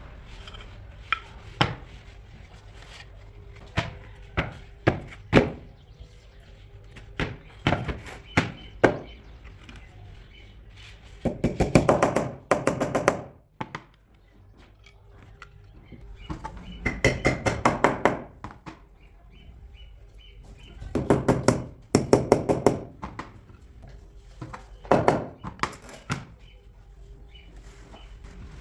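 Work on wood with hand tools: scattered single sharp knocks, then four bursts of rapid, closely spaced strikes lasting a second or two each.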